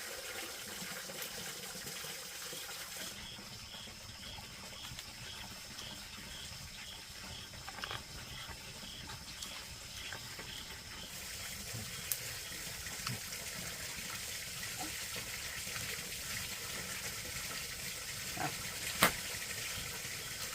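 Steady running or pouring water, with a single sharp knock near the end.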